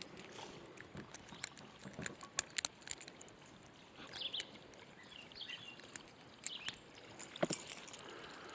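Scattered light clicks and knocks from handling fishing gear in a small boat, with a few short high chirps about four seconds in.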